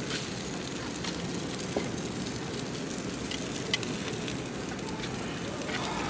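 Gas grill burning hot, with a steady sizzle and crackle of fat on the grates and a few light clicks. The owner says the grill's temperature is out of control despite the lowest setting.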